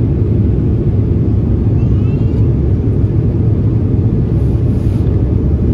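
Steady low cabin rumble of a jet airliner in descent: engine and airflow noise heard from inside the cabin.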